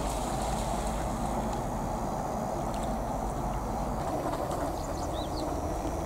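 Steady outdoor rushing noise, with a couple of faint, short, high bird calls about five seconds in.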